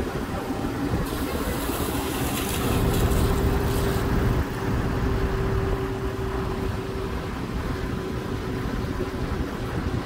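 Diesel engine of a mobile crane running steadily, with wind buffeting the microphone and a burst of hiss in the first few seconds.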